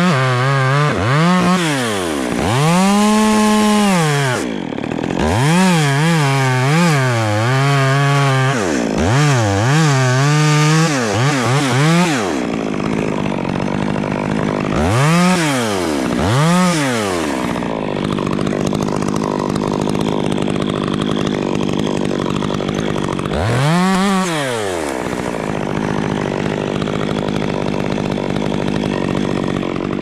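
Two-stroke chainsaw being revved up and down again and again, about ten quick climbs to full throttle and back in the first twelve seconds. It then runs steadier and quieter, with three more revs.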